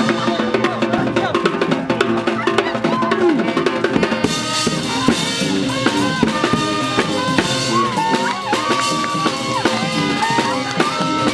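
New Orleans-style street brass band playing: trumpet, trombone and saxophones over a steady beat of snare drum, cymbal and bass drum. From about four seconds in a high horn line with bent notes rides over the top.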